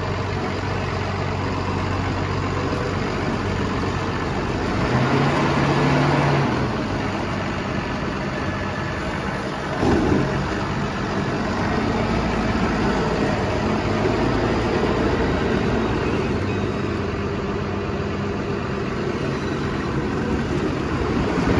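2018 Case IH Puma 165 tractor's six-cylinder diesel engine running as the tractor drives, picking up briefly about five seconds in, with a short knock about ten seconds in, and growing louder near the end as the tractor comes close.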